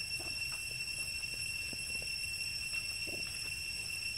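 Forest ambience: a steady high-pitched drone with a low rumble beneath it and a few faint short rustles.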